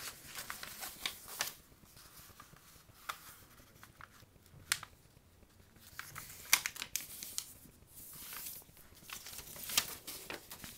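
A sheet of paper being folded and its creases pressed down, giving scattered crinkles and sharp crisp rustles with quieter gaps between.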